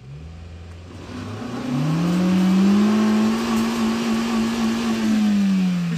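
Honda Fit's engine revving hard while its front tyre spins in the dirt rut and smokes. The revs climb over the first two seconds, hold high, and drop away near the end.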